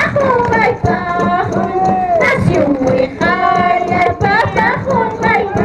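Women singing a high-pitched Andean Santiago festival song together, with regular drum beats under the voices.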